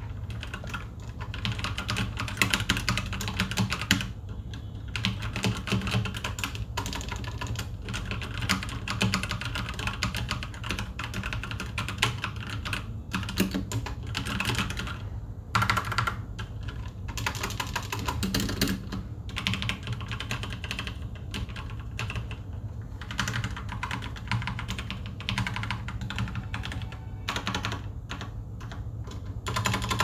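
Steady typing on a Royal Kludge G87 mechanical keyboard with red, non-clicky switches, close-miked: a dense clatter of keystrokes with brief pauses every few seconds.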